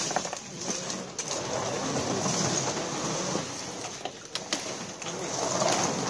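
A steady mechanical running rattle, with a few sharp clicks about four seconds in.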